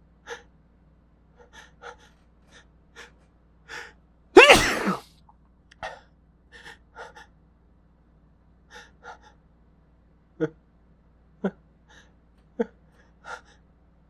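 A person repeatedly drawing short, quick breaths while trying to set off a sneeze, with one loud voiced sneeze about four and a half seconds in. Near the end come three short, sharp sounds about a second apart.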